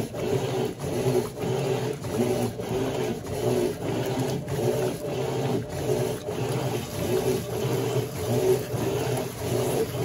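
Electrolux Turbo Flex LQ11 top-loading washing machine agitating: a motor hum and water sloshing, with the agitator swishing back and forth in an even rhythm, a stroke a little over every half second.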